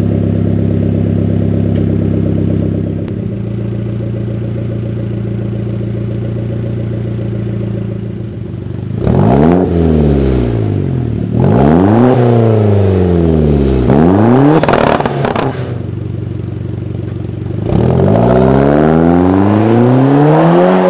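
Hyundai Genesis Coupe's tuned 2.0-litre turbocharged four-cylinder through a TurboXS RS single-exit turboback exhaust. It idles steadily, the idle settling a little lower about three seconds in, then it is revved three times in quick succession. Near the end it pulls away hard, the pitch rising, dipping at a gear change, then rising again.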